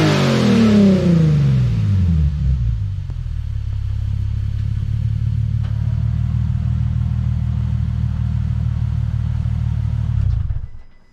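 Nissan 370Z's 3.7-litre V6 through a new ISR Y-pipe and single-exit exhaust, loud: the revs fall back from a blip over the first two seconds, then it idles steadily, and the sound cuts off near the end.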